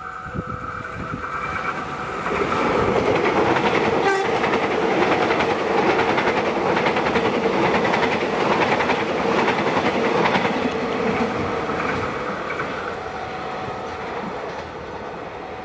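Electric commuter train passing close by, its wheels clattering over the rail joints in a dense rumble that builds about two seconds in, stays loud for several seconds and then fades. A steady tone runs underneath.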